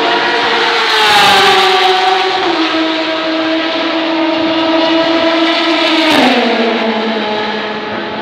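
Racing cars at speed along the straight, engines holding a steady note. The pitch drops sharply as a car goes by about a second in and again around six seconds in.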